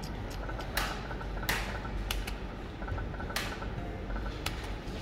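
Fruit-themed video slot machine playing its electronic game sounds: short repeated beeping tones broken by several sharp clicks, over a steady low hum.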